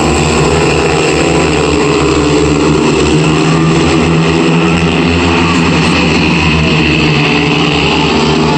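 Speedway bikes' 500cc single-cylinder methanol engines racing flat out round the track, a loud, steady engine din.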